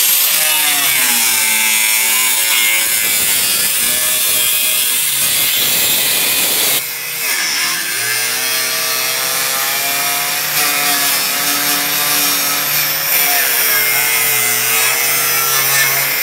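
Angle grinder with a cut-off wheel cutting through rusted sheet steel of a pickup bed. The motor's pitch sags and recovers as the wheel bites in, with a brief let-up about seven seconds in before the cut resumes.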